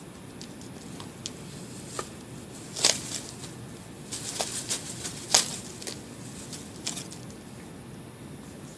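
Turkey vulture's wing feathers rustling and flapping as it moves its partly spread wings. The sharp scrapes come in two clusters, a short one about three seconds in and a longer one from about four to six seconds.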